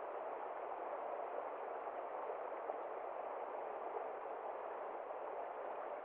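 Fast-flowing river water rushing steadily over rocks.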